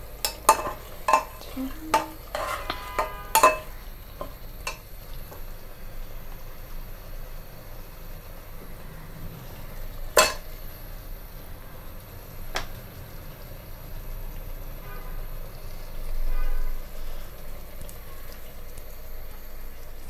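Chicken pieces going into a metal pot of hot spiced oil and being stirred: a steady frying hiss with metal knocks and clatter, several quick knocks in the first few seconds and one loud knock about ten seconds in.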